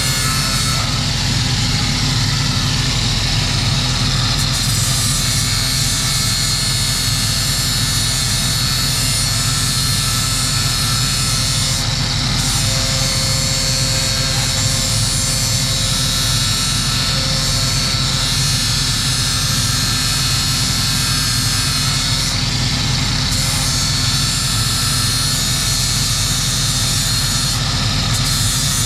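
Angle grinder running steadily, grinding the dull steel edge of a rotary brush cutter blade, its high whine unbroken.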